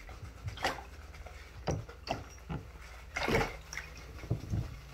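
Bathwater splashing in a tub around a puppy being washed: several separate splashes, the loudest about three seconds in.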